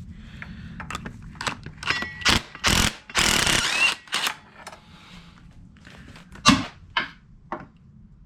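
Hand tools knocking and clicking against metal parts of an engine during exhaust manifold removal: a string of sharp irregular clanks, with a denser scraping rush a little past three seconds in and one loud knock about six and a half seconds in.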